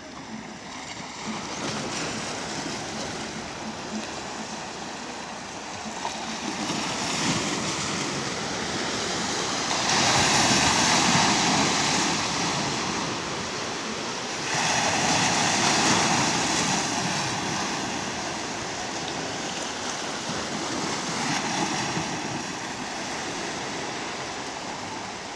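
Small sea waves breaking and washing over shoreline rocks, a steady rushing surf that swells louder twice, about ten and fifteen seconds in, as bigger waves break.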